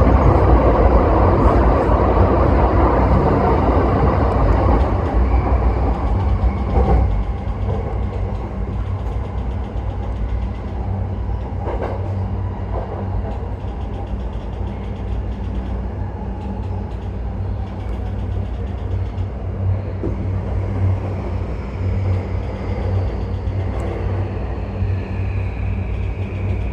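Yamanote Line electric train running on the rails: a steady low motor hum and wheel rumble, louder for the first few seconds, with a few sharp clanks and a falling whine near the end.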